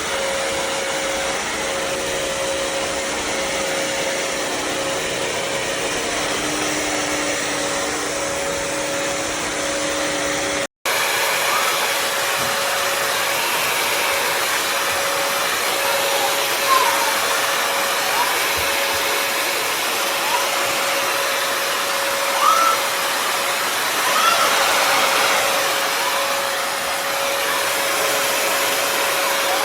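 Bissell CrossWave HydroSteam wet-dry floor cleaner running with a steady motor whine and airflow. The sound cuts out briefly about eleven seconds in and resumes. In the second half, short rising squeaks come every couple of seconds.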